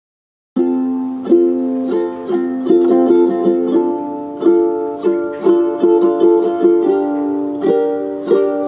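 Background music: a light plucked-string tune with a steady pulse of notes, starting about half a second in after silence.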